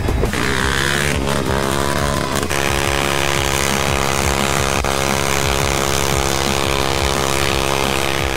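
Sport quad bike (ATV) engine revving in uneven bursts, then held at a steady high rev from about two and a half seconds in as it spins its rear tyres in a smoky burnout.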